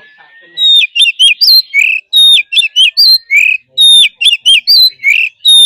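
Oriental magpie-robin singing a loud, repeated whistled phrase: a high downslurred note, a few quick notes, then a lower slurred note. It starts about half a second in and repeats about every second and a half.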